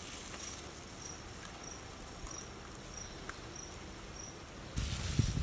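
Cricket chirping steadily outdoors, a short high chirp repeating about every two-thirds of a second over faint background hiss. Near the end a louder rush of low noise comes in.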